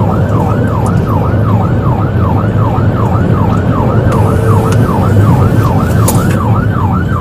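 Police cruiser's electronic siren in fast yelp mode, rising and falling about three times a second, heard from inside the car over engine and road noise during a high-speed pursuit.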